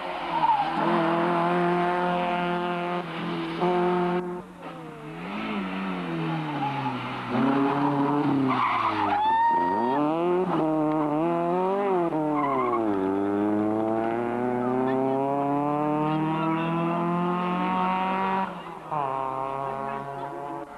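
Rally car engine driven hard along a stage, revs repeatedly climbing and dropping with gear changes and lifts off the throttle, including one long climb in the second half. A short tyre squeal comes about halfway through.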